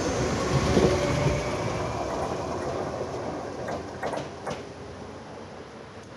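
A train pulling away, its running noise fading steadily, with a few sharp clacks about two thirds of the way in.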